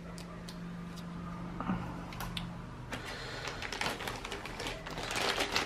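Handling noise from unboxing: scattered sharp clicks and taps, then crackling rustle of packaging growing louder over the last couple of seconds.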